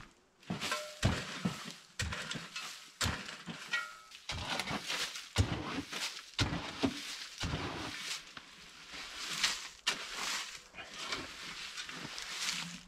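A shovel scooping wood chips out of a utility trailer and throwing them onto the ground: an irregular run of scrapes, knocks and swishes as the blade digs into the load and the chips land.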